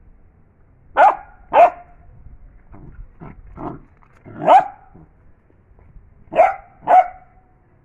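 Dog barking: short, sharp barks, five loud ones mostly in pairs, with a few quieter ones between them.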